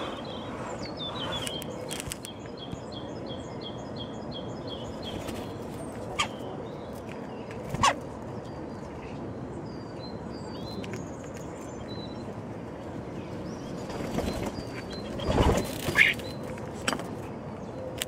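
Birds outdoors at a windowsill feeder: a songbird repeats a short high chirp about three times a second, two sharp knocks sound on the sill, and near the end a woodpigeon's wings flap loudly as it lands among a jackdaw already feeding on the sill.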